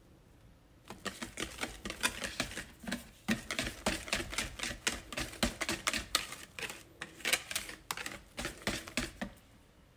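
Wire balloon whisk beating thick cake batter in a plastic mixing bowl: a quick, steady run of clicking, slapping strokes against the bowl's sides. It starts about a second in and stops near the end.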